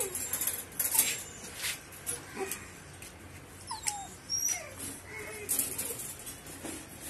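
Mastiff puppies whimpering: short, high whines that slide down in pitch, coming every second or so, with scattered sharp clicks.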